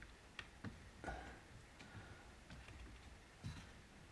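Near silence with a few faint, scattered clicks and ticks: an awl and small plastic parts being handled.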